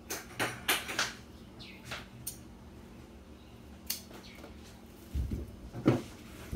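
Handling noises: a quick run of light clicks and rustles in the first second, a few scattered ticks, then a low thump and a sharp knock near the end, the knock being the loudest.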